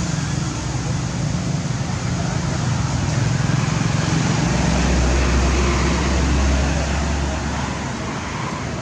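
Steady outdoor background noise, with a low rumble that sets in about halfway through and fades near the end.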